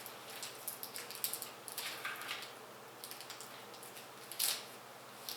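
Computer parts being handled during a PC build: scattered small clicks, taps and light rustling, with one short, louder scrape or rustle about four and a half seconds in.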